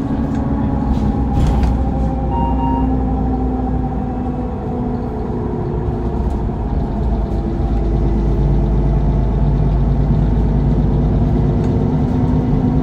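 Mercedes-Benz Citaro CNG city bus engine and ZF Ecomat automatic transmission running steadily, heard from inside the bus, its pitch drifting slightly with a small dip in level partway through. A short beep sounds about two and a half seconds in.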